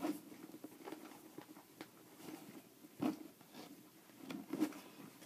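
Faint rustling and light clicks of a Damier-print canvas handbag being handled as its inside is shown, with a louder rustle about three seconds in.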